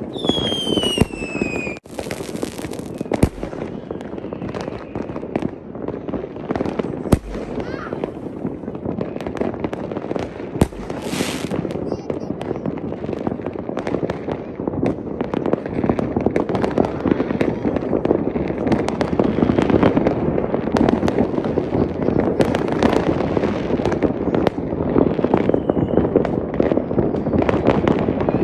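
Fireworks going off in a dense run of bangs and crackles, with a falling whistle in the first couple of seconds. The crackling grows louder and thicker about halfway through.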